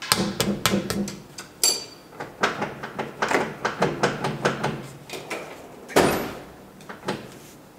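Metal tool clicks and knocks as a wrench works a bolt on the underside of a Duramax pickup: irregular runs of sharp clicks, a brief metallic ring about two seconds in, and a short rush of noise about six seconds in.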